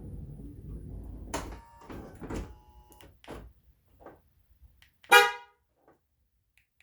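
Honda Odyssey power door locks clunking several times as they are cycled with the key remote, then one short car horn chirp about five seconds in, the lock confirmation: the replaced passenger door lock actuator is working again.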